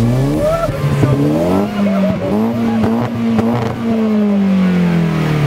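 Nissan S13 hatchback's engine revved while stationary, heard at the exhaust: the pitch rises quickly, climbs again and is held high through the middle, then falls back smoothly near the end.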